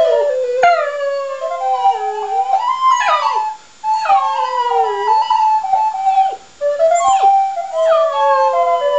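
A border terrier howling along to a melody played on a recorder: several drawn-out howls that slide down in pitch, over the recorder's stepping notes, with two short breaks in the playing.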